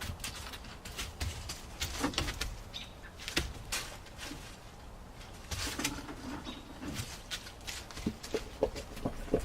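Irregular rustling and crackling outdoors, with a low rumble of wind on the microphone.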